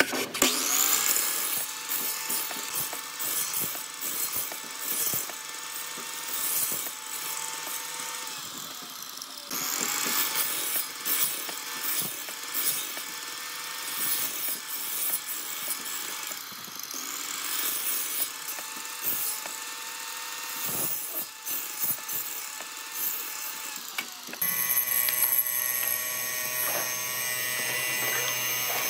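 An electric power tool working wood, started three times: each time its motor whines up to speed, then runs steadily for about seven seconds with a rough grinding noise over it. In the last few seconds a different sound with several held tones takes over.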